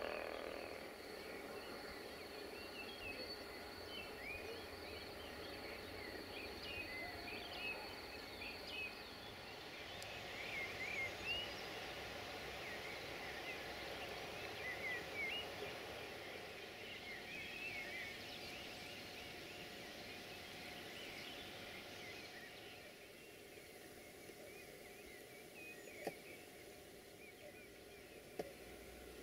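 Faint outdoor ambience with small birds chirping and singing, with two brief ticks near the end.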